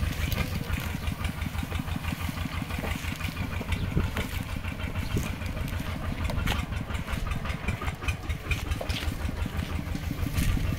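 Engine of a two-wheel walk-behind mini tractor running steadily with a rapid, even chug.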